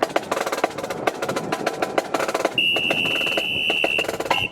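Marching band playing, led by rapid snare-drum and percussion strokes; about halfway through, a high steady note is held for about a second and a half over the drumming.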